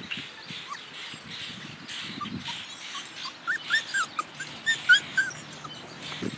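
Mini Bernedoodle puppies, five weeks old, whimpering: a quick run of short, high whines in the middle, over soft rustling.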